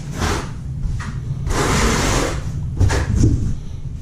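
A trowel scraping in three strokes, the middle one the longest, over a steady low rumble.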